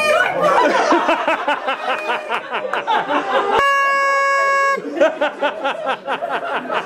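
A group clapping and laughing. About three and a half seconds in, a steady horn-like tone is held for about a second.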